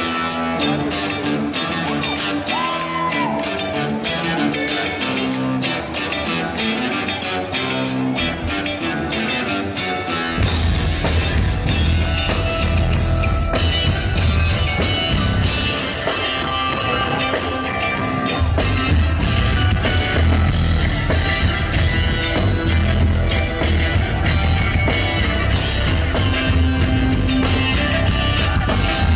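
Live funk rock band: an electric guitar plays alone for about the first ten seconds, then the full band comes in with a heavy bass end.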